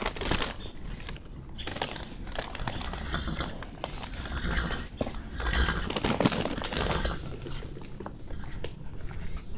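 A horse chewing feed or hay, an irregular run of crunching bites.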